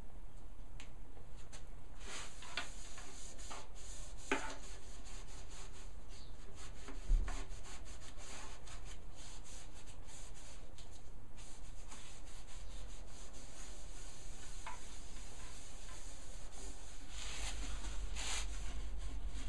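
A stain applicator rubbed back and forth over wood in short, repeated strokes while stain is wiped into a wooden box. A single dull knock comes about seven seconds in, over a steady low hum.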